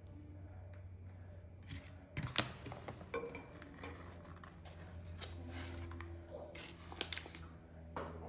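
Sharp clicks and clinks of metal engine parts and hand tools being handled during bottom-end assembly, loudest a couple of seconds in and again near the end, over a steady low hum.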